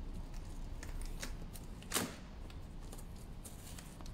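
Scattered rustles and clicks of packaging being handled, over a steady low rumble of background noise, with one louder crackle about two seconds in.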